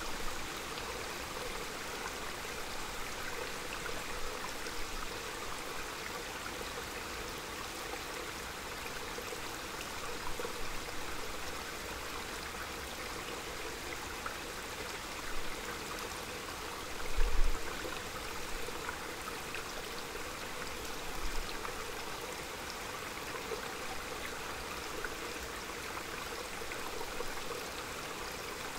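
Small mountain stream flowing and trickling, a steady rush of water. A few brief low rumbles break in, the loudest about 17 seconds in.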